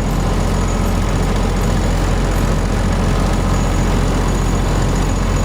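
Engine running steadily and loudly, a constant low drone with no change in speed.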